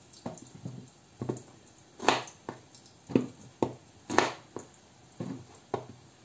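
Kitchen knife slicing through a peeled raw gourd onto a plastic cutting board: about a dozen sharp, uneven chops, a couple of them longer and wetter-sounding.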